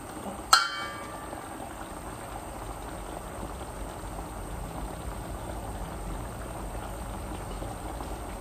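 Chicken asado sauce simmering and bubbling in a pot, a steady low bubbling hiss. About half a second in, a single sharp clink rings briefly, as of a utensil knocking the pot.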